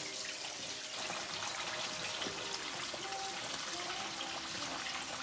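Pieces of floured fish frying in hot oil in a Dutch oven: a steady sizzle with constant small crackles.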